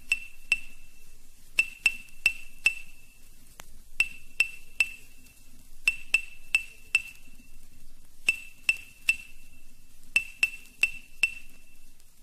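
High, clear ringing pings, all of one pitch, struck in an even rhythm in groups of three and four, about two or three a second, over a faint low hum.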